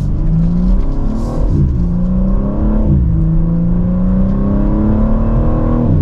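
BMW M4 Competition's 3.0-litre twin-turbo inline-six accelerating through its 8-speed automatic, heard from inside the cabin: the revs climb, drop quickly at a gear change about one and a half seconds in and again about three seconds in, then climb steadily.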